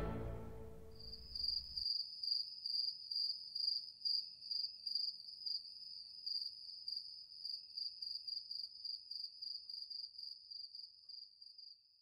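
The last orchestral chord dies away over the first second or two. Then a cricket chirps, a high thin trill pulsing about two to three times a second, until it stops near the end.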